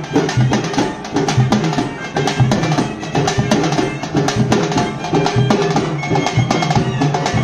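Live procession drumming: large barrel drums and hand-held frame drums beaten in a fast, dense rhythm, with a wind instrument holding steady notes underneath.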